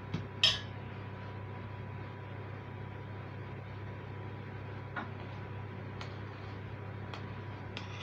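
Metal utensil clinking against a stainless steel hotel pan, with one sharp loud clink about half a second in and a few lighter taps later, over a steady low hum.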